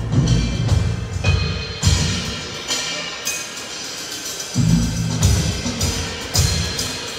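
Live band music led by a drum kit: clusters of heavy low drum hits with cymbal crashes, easing off midway and then coming back hard.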